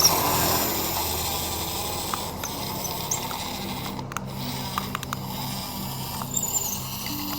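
Toy excavator's small geared mechanism running, with a ratcheting whir and scattered sharp clicks.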